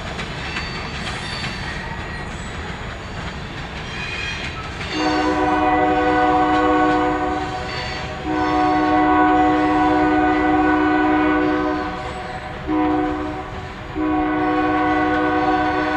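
Freight cars rumbling away along the track for the first few seconds. Then the EMD locomotives' multi-chime air horn, from the far head end of the train, sounds four blasts: long, long, short, long. That is the standard pattern for a grade crossing.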